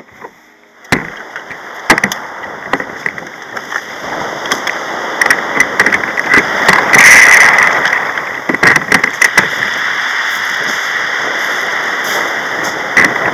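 Loud, steady rushing of wind on the kayak-mounted camera's microphone, starting suddenly about a second in and swelling about seven seconds in. Sharp knocks and clicks come through it as the kayak's bow hatch is handled.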